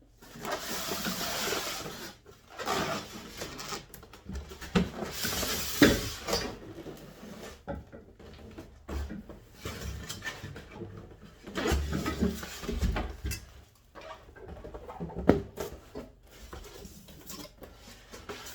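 YardBird chicken plucker being moved and stood upright: irregular scraping and rubbing with several bumps and knocks, the loudest a sharp knock about six seconds in.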